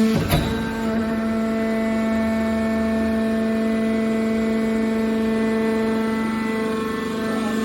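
Hydraulic scrap metal baler running: a steady whine from its hydraulic pump, with a single sharp clank about a third of a second in.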